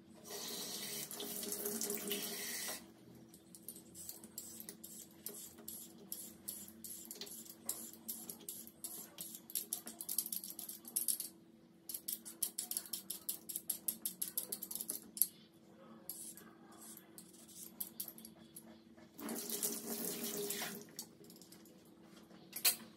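Kitchen tap running briefly into a stainless steel sink, then a vegetable peeler scraping along a cucumber in quick repeated strokes. A second short run of water comes near the end.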